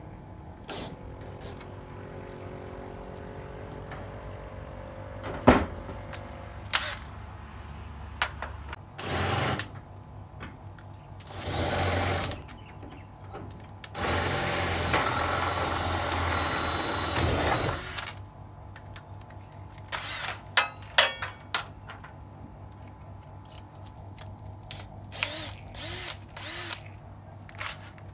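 Power drill run in three bursts into very hard wood, the last about four seconds long, to set a screw. Sharp clicks and knocks come before and after the bursts.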